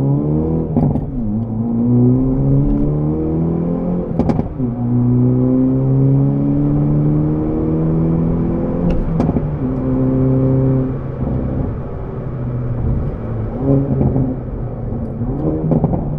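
Hyundai Veloster N's 2.0-litre turbocharged four-cylinder and its exhaust in Sport Plus mode, heard from inside the cabin under hard acceleration at 80–90% throttle. The revs climb three times, each climb broken off by an upshift, about a second in, about four seconds in and about nine seconds in. The engine then runs steadier and a little quieter, with a few short sharp sounds near the end.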